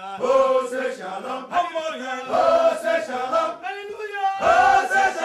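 A group of men chanting a song together, phrase after phrase, with short breaks between the lines.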